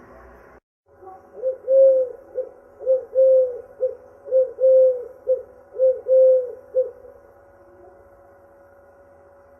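A dove cooing: a phrase of about a dozen low coos, short notes alternating with longer drawn-out ones, lasting about five seconds and then stopping.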